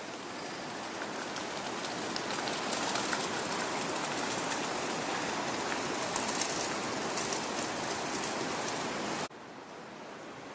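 Steady outdoor city street ambience: an even wash of noise with faint scattered ticks. It drops sharply to a quieter ambience about nine seconds in.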